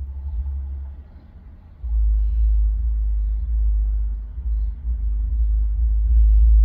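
A steady low rumble that jumps much louder about two seconds in and keeps going, with small dips.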